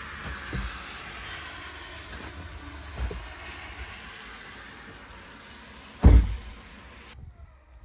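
Converted truck driving, with steady road and wind noise and a few low thumps, the loudest about six seconds in. The sound drops off abruptly a second before the end.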